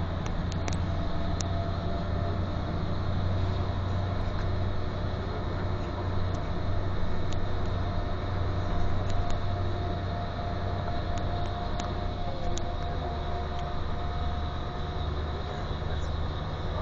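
Steady low drone of a moving coach bus, engine and tyre noise heard from inside the cabin, with a faint higher whine through the middle and a few light ticks scattered through it.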